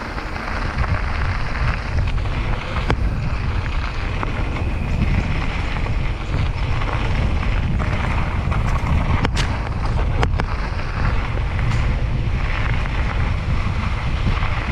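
Wind buffeting the microphone of a camera on a moving mountain biker, over the rumble of tyres rolling on a dirt and gravel trail. A few sharp knocks come about nine and ten seconds in.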